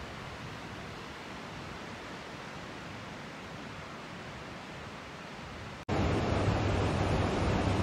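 Steady wash of ocean surf on a beach. About six seconds in, the sound cuts abruptly to a louder stretch of surf with a low steady rumble beneath it.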